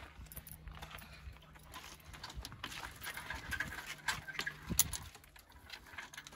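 Footsteps crunching on gravel from a dog walking in rubber-soled dog boots and a person walking with it, an irregular patter of small steps, with one sharper click a little after the middle.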